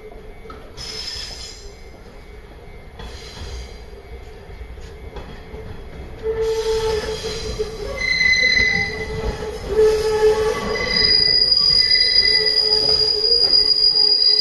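Hanshin 7861-series electric railcar coming round a curve, its wheels squealing against the rails. The squeal starts about six seconds in as several high, shifting tones and grows louder as the car nears.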